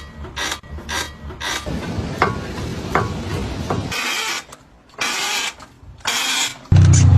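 Mechanical scraping and rasping: short clicks and scrapes about two a second, then three longer harsh rasps about a second apart. Near the end a vehicle engine comes in suddenly and loud.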